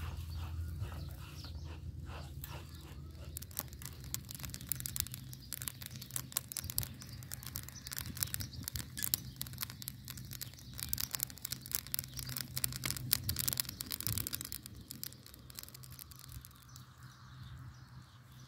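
Dense crackling and ticking of grain dry-roasting and being stirred by hand in a large steel pan over a wood fire. The crackle thins out about fourteen seconds in.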